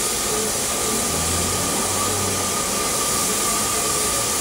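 Steady hiss of steam escaping from a stationary LNER K4 2-6-0 steam locomotive, with a constant whistling tone running through it.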